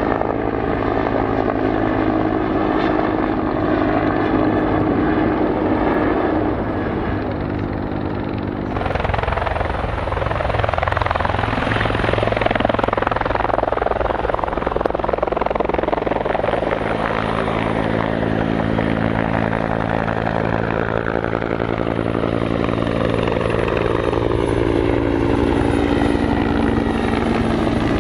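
Bell CH-146 Griffon military helicopter running close by, with a steady rotor beat and turbine whine. About nine seconds in, a louder rushing noise and a high whine come in, and later the rotor tones slide down in pitch and back up as it moves.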